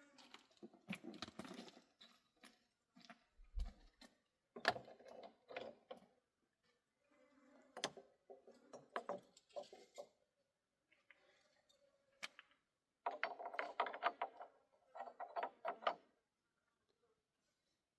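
Irregular clicking, knocking and scraping of objects being handled, coming in short clusters with pauses between, and a low thud about three and a half seconds in.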